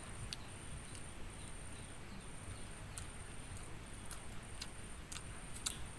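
Quiet field ambience: a thin, high insect-like trill that keeps stopping and starting, over a low rumble, with a few scattered small clicks.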